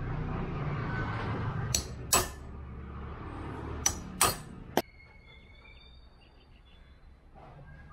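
Hammer tapping a steel centre punch against a stainless-steel spoon lure blank on a bench vise, marking it before drilling: five sharp metallic strikes in two quick pairs and then a single one, the last leaving a brief high ring. A steady low background noise stops about five seconds in.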